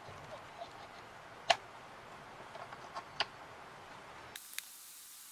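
Faint clicks and taps of small laser-cut MDF parts as wooden wheels are pressed onto a model car's axles. Two sharper clicks come about a second and a half and three seconds in, over low hiss, with a brighter hiss near the end.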